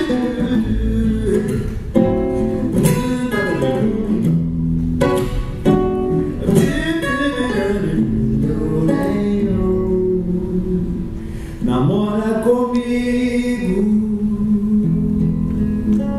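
Acoustic guitar plucked, with a man singing over it.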